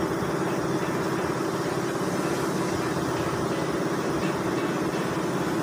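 An engine running at a steady idle, an even drone that holds the same pitch and level throughout.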